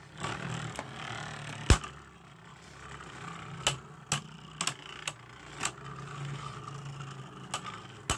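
Two Beyblade Burst tops, Spriggan Requiem and Revive Phoenix, whirring as they spin on a plastic stadium floor, with repeated sharp clacks as they collide. The loudest clack comes a little under two seconds in.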